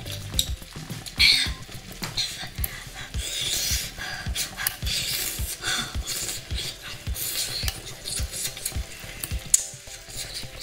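Close-up wet eating sounds: biting, sucking and chewing on a whole cooked octopus, with many sharp smacking clicks and slurping hisses.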